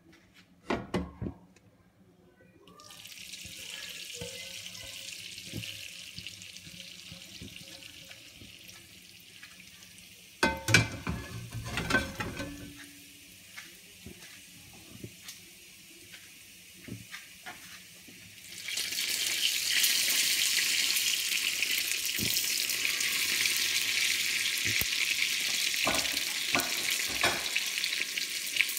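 Hot oil with fried bits sizzling in a cast-iron sizzling plate, starting about three seconds in after a few knocks. Near the middle there is a short burst of knocking and clatter. About two-thirds through the sizzle jumps much louder as the pan-fried salmon fillets go onto the plate, with a few more knocks near the end.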